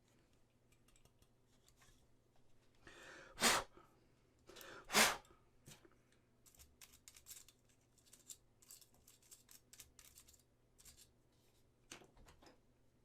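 Small handling sounds from work on a resin model kit: two brief loud rushing noises a few seconds in, then a string of small clicks and scrapes.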